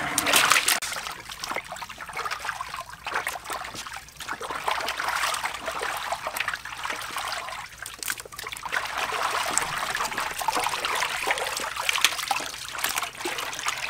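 Water splashing and trickling in an aluminium basin as raw chicken drumsticks are washed by hand, stirred and lifted out of the water.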